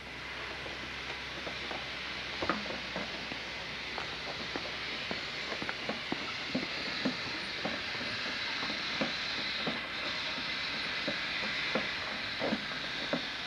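Hand-pumped backpack sprayer spraying pesticide: light, irregular clacks of the pump lever about twice a second over a steady hiss.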